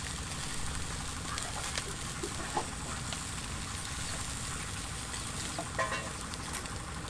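Pig intestines sizzling on a wire grill rack, with occasional light clicks of metal tongs as the pieces are turned.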